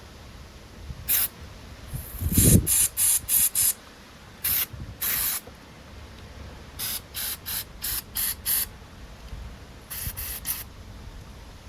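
Aerosol carburetor cleaner sprayed in about seventeen short, sharp hissing bursts in uneven groups onto small-engine carburetor parts, with a dull thump of a part being handled about two and a half seconds in.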